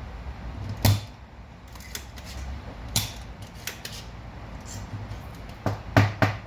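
Sharp, separate clicks and taps of small hand tools working on a printer circuit board: one about a second in, one near the middle, and three in quick succession near the end, over a low steady hum.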